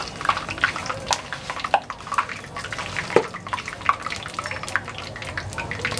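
Cornflakes deep-frying in hot oil inside a wire-mesh strainer: a busy, irregular crackle and sputter of bubbling oil. A metal spoon stirs them, clinking and scraping against the strainer.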